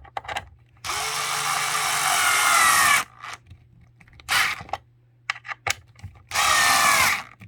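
Battery-powered screwdriver running in three bursts, its motor pitch rising and falling: a long run about a second in, a short blip midway and another run near the end, driving down the screws of the mixer's cord clamp plate. Small clicks fall between the runs.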